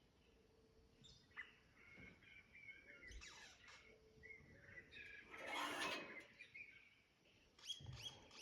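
Birds chirping and calling faintly, short whistled notes repeating throughout, with a louder, harsher burst a little past the middle and a few sharp clicks near the end.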